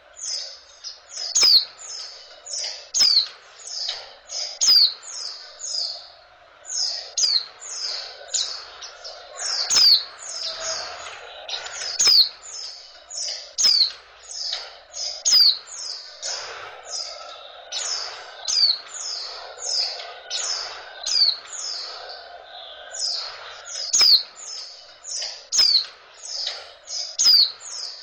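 Female white-eye (pleci) calling: a steady, rapid series of short high chirps, each sliding down in pitch, about two a second. It is the female's breeding-season call, used to get male white-eyes excited and singing.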